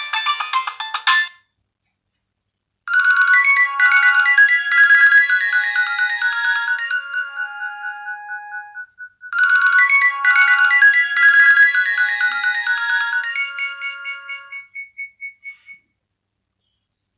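Nokia 2600c ringtones, electronic melodies with several notes sounding at once. A busy ringtone ends about a second in. After a short pause a new melodic ringtone plays, then plays through a second time, each pass lasting about six seconds.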